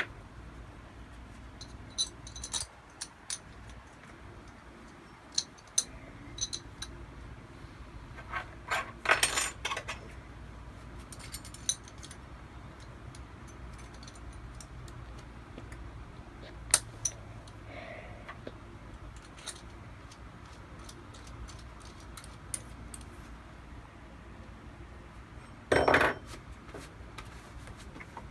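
Scattered small metal clinks and clicks of drill bits being handled, the sign of a larger bit being swapped in. Two brief rasping bursts, about nine seconds in and near the end.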